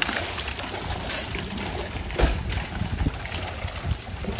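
Water splashing and lapping as a school of fish thrashes at the surface, feeding. There are a few louder splashes, the biggest about two seconds in, over a low steady rumble.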